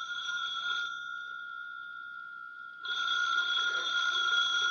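Telephone bell ringing: one ring ends about a second in and the next begins about three seconds in.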